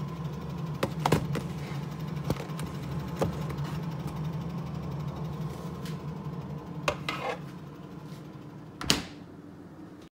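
Plastic food containers knocking and clicking against a refrigerator's shelf as a container of raw pork is set inside, over the steady low hum of the open refrigerator. A louder knock comes near the end as the door swings.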